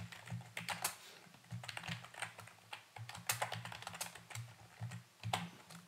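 Typing on a computer keyboard: a run of irregular, quick keystroke clicks.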